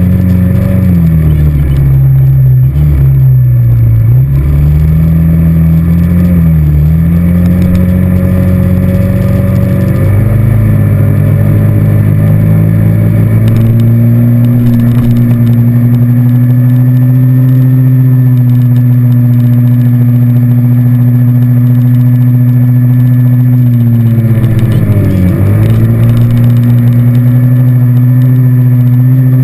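ATV engine running under way. Its note drops and climbs again a few times in the first ten seconds, then holds steady while cruising, with one brief drop and rise near the end.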